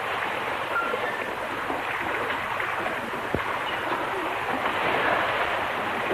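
Steady rain, an even hiss with no break, with a single dull knock about three and a half seconds in.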